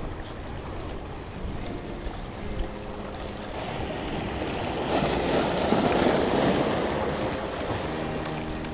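Small waves washing and breaking over the rocks of a jetty, swelling louder about halfway through.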